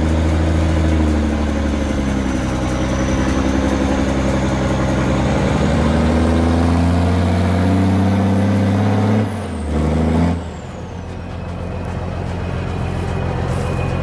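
Heavy diesel engine of a loaded log truck working hard under load while the truck tries to pull itself out of deep mud, with a faint high whine over it. About ten seconds in the revs drop, pick up briefly, then fall back to a lower, steady run.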